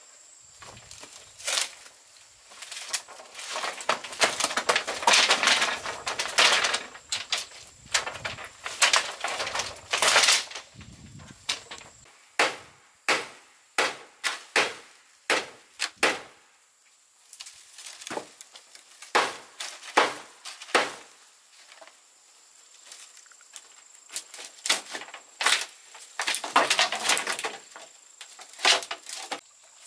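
Wood being worked by hand with a cutting tool: sharp chops and knocks, including a steady run of about one every 0.7 s in the middle, between longer stretches of rough rasping noise.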